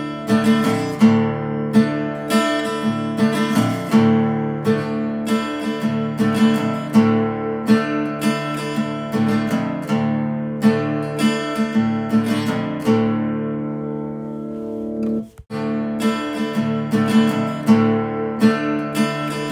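Background music: a strummed acoustic guitar playing steady chords. It cuts out for an instant about fifteen seconds in.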